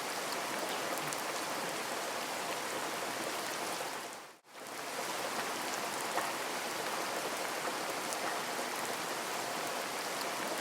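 Steady rain falling, a constant hiss with scattered small drop ticks, fading out briefly about four seconds in and then coming straight back.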